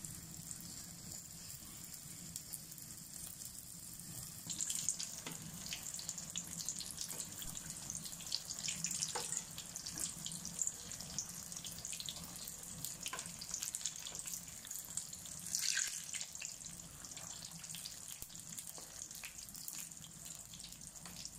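Popiah spring rolls deep-frying in a wok of hot oil: a steady sizzling and bubbling with small crackles, swelling briefly about four and a half and fifteen and a half seconds in.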